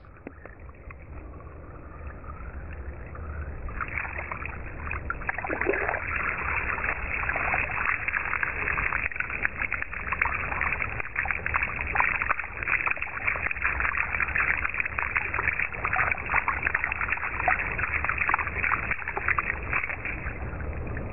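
Water from a garden hose spraying and splattering onto a leafy nettle plant and the rock beside it: a steady spattering hiss that starts about four seconds in.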